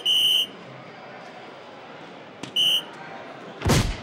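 DARTSLIVE electronic soft-tip dartboard: a high electronic tone rings out for a triple hit, then about two and a half seconds in a dart taps into the board and a shorter electronic tone sounds. Near the end a loud whooshing sound effect starts as the board's animation for the turn plays.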